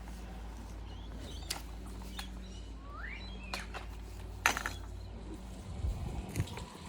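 Bird chirping, one call rising in pitch about three seconds in, over a steady low hum, with a few sharp clicks and some low thumps near the end.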